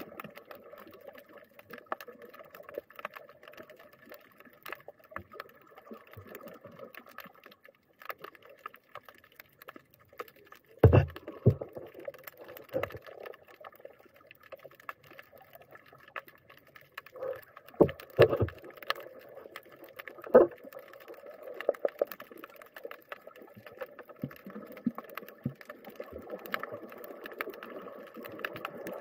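Underwater ambience picked up by a camera submerged over a coral reef: a constant crackle of faint clicks over a steady low drone. A few sharp knocks stand out, a cluster about eleven seconds in and another around eighteen to twenty seconds.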